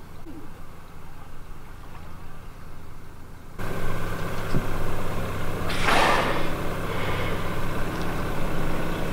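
A boat engine running steadily, jumping louder at an abrupt cut about three and a half seconds in, with a brief rushing burst about six seconds in.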